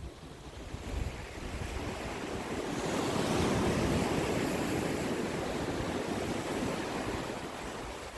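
Ocean waves breaking on the shore: a wave's rush swells about a second in, is loudest around the middle, then washes out and fades near the end.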